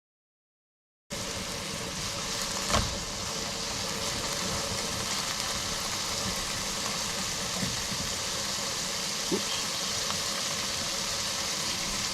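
Quail frying in a pan, a steady sizzling hiss that begins about a second in, with a sharp knock of a utensil or pan a couple of seconds later and a lighter one near the end.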